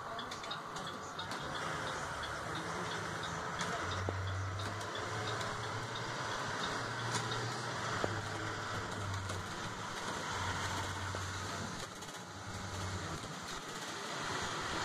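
Inside a moving transit bus: the engine's low hum with road and tyre noise on wet pavement, steady throughout. A light rapid ticking is heard near the start.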